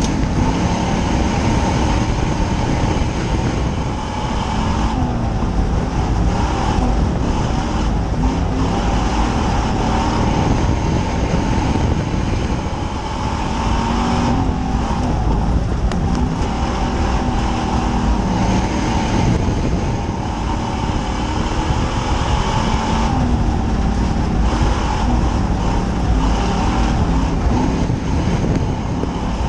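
Dirt-track stock car's engine running hard, heard from inside the cockpit, loud and continuous. Its pitch and level dip briefly about every eight seconds as the driver lifts for the turns, then climb again on the straights.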